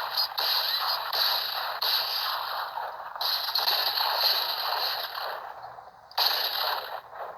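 Vintage Warner Bros film gunfire sound effects: hissy, reverberant shots in a cowboy gun battle, about one a second. Fresh volleys come in about three seconds and about six seconds in.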